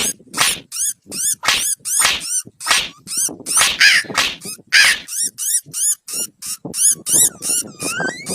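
A dog barking and yipping in quick, short repeated barks, about three a second.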